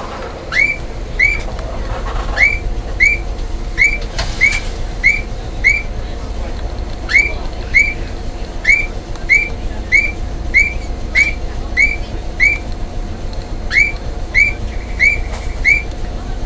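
Short rising bird-like chirps, repeated about once every half second with a few brief pauses, over the low steady hum of a tram standing at a platform.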